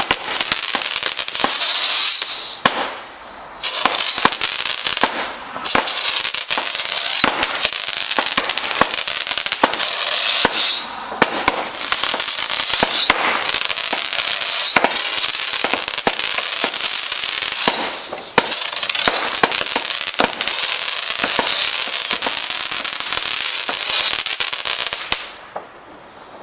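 Fireworks crackling: a dense, rapid stream of sharp pops and crackles, with short lulls about three seconds in and again around eighteen seconds, dying down near the end.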